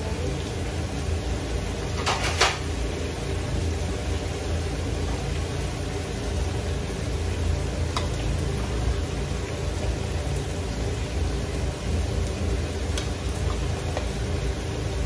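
Metal slotted spoon scraping and clinking against an aluminium pot as cooked rice is scooped out, with a sharp double clink about two seconds in and single clinks later. Underneath are a steady low rumble and faint sizzling from lamb steaks in a griddle pan on the stove.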